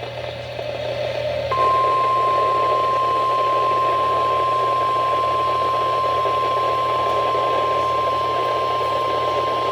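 Weather-radio receiver hiss, then about a second and a half in a single steady NOAA Weather Radio 1050 Hz warning alarm tone starts and holds: the alert signal sent ahead of a warning message.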